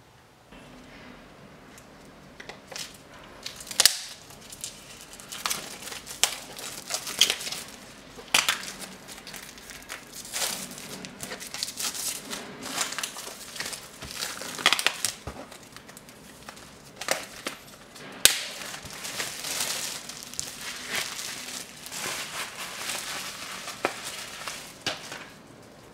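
Packaging crinkling, crackling and tearing in irregular bursts as a new blank canvas is unwrapped by hand.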